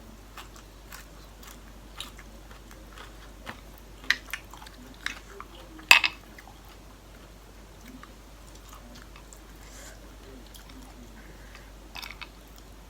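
A person chewing and biting into a seafood papaya salad, with scattered short crunches and clicks; the loudest crunch comes about six seconds in.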